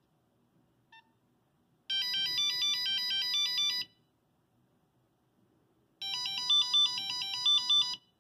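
Nokia 5110 monophonic ringtone sounding from the phone's speaker: a short beeping melody about two seconds long, played twice with a two-second gap between. A brief faint beep comes about a second in.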